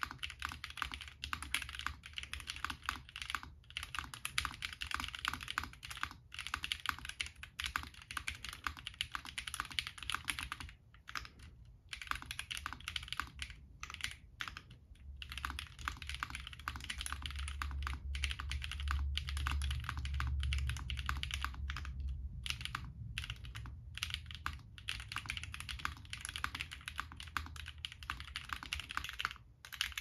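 Typing on a QK80 custom mechanical keyboard with a hard-mounted aluminium plate, no foam, lubed Blue Bonnet switches and GMK Space Cadet keycaps: a fast, steady clatter of keystrokes broken by a few brief pauses. A low hum swells under the typing in the middle.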